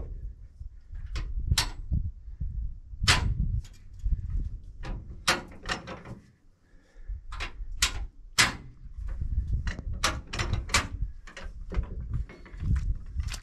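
A jack being worked to lift the back of a heavy pickup truck: a dozen or more sharp metal clanks at irregular intervals, over a low rumble.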